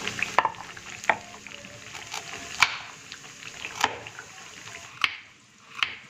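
Kitchen cooking sounds: six sharp taps or knocks, roughly a second apart, over a faint sizzling hiss from frying.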